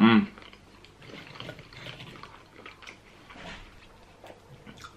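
Chewing a mouthful of fried calamari: quiet, wet mouth sounds and scattered small clicks.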